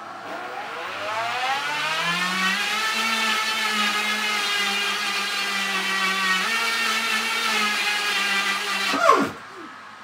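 Countertop blender motor starting and whining up to speed over about two seconds, running steadily as it blends a thick bait paste, then cutting off about nine seconds in with a quick falling whine.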